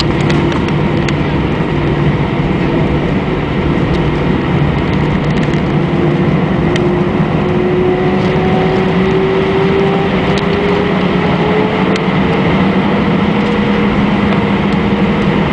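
Airbus A319's CFM56 turbofan engines heard from inside the cabin over the wing: a loud steady hum with a whine that slowly rises in pitch through the middle, as the engine thrust increases on the ground.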